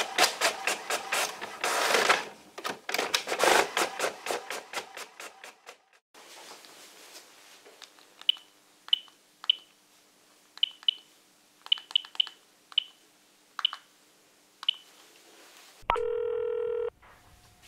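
Inkjet all-in-one printer printing a page, its print head clattering in a fast even rhythm that fades out about six seconds in. Then come about ten short keypad beeps as a mobile phone number is dialled, and near the end one long ring of the phone's ringing tone as the call connects.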